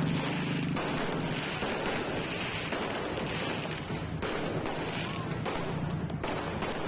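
Fireworks going off in a continuous barrage: many rapid pops and crackles merging into a steady rushing noise.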